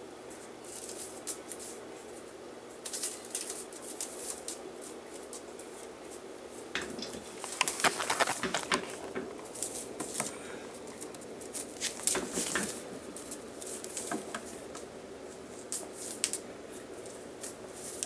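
Kitten playing with a feather toy on a hard floor: scattered rustles, scrapes and light taps of feathers and claws, busiest a little before halfway and again a few seconds later.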